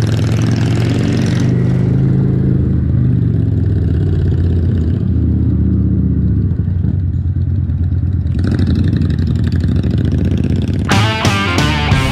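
Kawasaki cruiser motorcycle engine running steadily while riding at low speed, heard from the rider's position. Rock guitar music comes in near the end.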